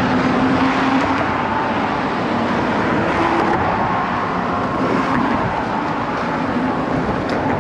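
Steady road traffic noise from vehicles crossing the bridge: a continuous rushing hum with faint steady tones in it.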